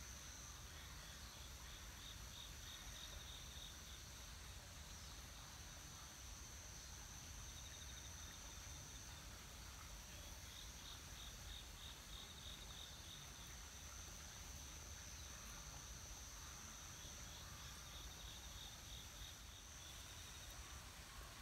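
Faint insect chorus: a steady high-pitched trill, with a second insect chirping in repeated runs of quick pulses, over a low rumble.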